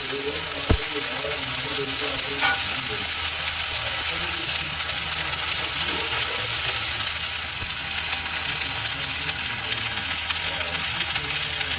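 Steady hissing workshop noise, with faint voices in the background and a single click just under a second in.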